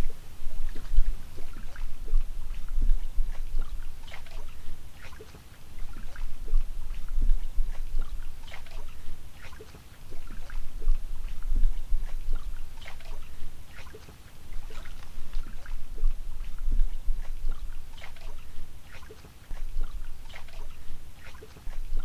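Water lapping and sloshing at a lake edge with many small splashes, swelling and fading every few seconds, over a low rumble.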